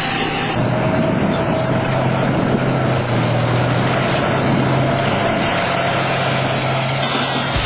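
T-55 tank driving, its V-55 V12 diesel engine running steadily under a loud, even drone with a steady whine. The sound changes abruptly about half a second in.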